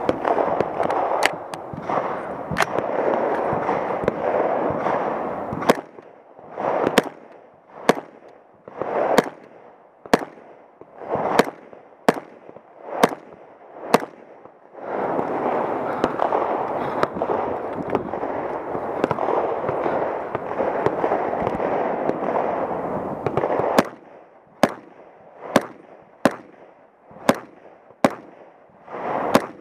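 Rifle shots from a .300 Blackout AR-15 carbine, fired one at a time about once a second, some in quick pairs. During two long stretches a steady rushing noise runs beneath the shots.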